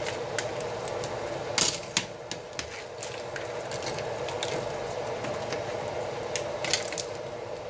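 A handful of sharp clicks and knocks, loudest about a second and a half in, as a long-handled wire spider strainer and crab shells hit a large aluminium stockpot, over the steady noise of the pot at a boil.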